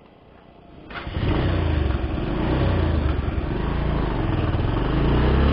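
Bajaj Pulsar 150's single-cylinder engine starting about a second in, then running steadily at idle.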